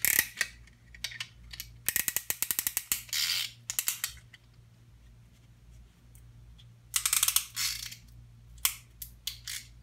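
Ratchet-type piston ring compressor being cranked tight around a piston to squeeze its rings, in several bursts of rapid ratchet clicks with short pauses between.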